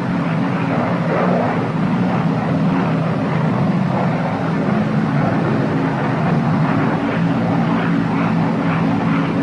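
The twin Pratt & Whitney R-2800 radial engines of a Northrop P-61 Black Widow drone steadily in flight on the landing approach, with the propellers set for 2400 rpm.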